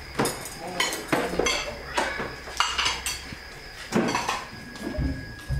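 Plates clinking and clattering as they are stacked while a dinner table is cleared: a string of separate sharp clinks, irregularly spaced.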